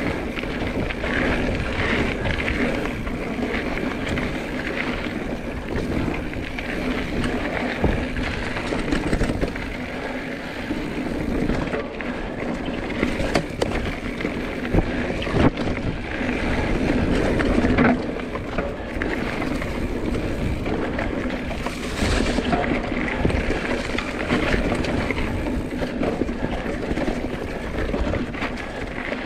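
Mountain bike being ridden along a dirt singletrack: a steady rush of wind on the microphone over tyre and chassis rattle, broken by several sharp knocks as the bike hits bumps.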